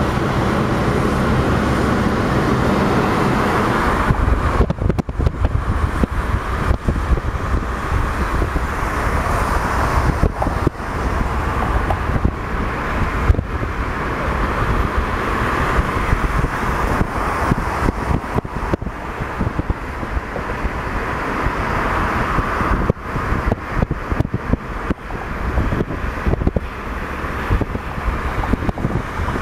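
Steady road and engine noise of a taxi driving at speed, heard from inside the cab. From about four seconds in it turns choppy and uneven, with wind buffeting the microphone.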